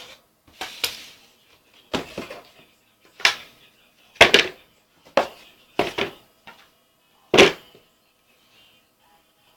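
Handling noise from a keyboard and its packaging: about eight separate short knocks and thuds at uneven intervals, a second or so apart.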